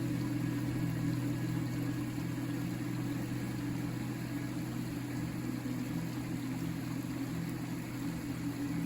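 River flowing, a steady low rush of water.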